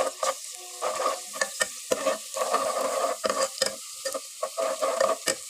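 Garlic paste sizzling in hot oil while a spoon stirs it, clicking and scraping against the pan many times.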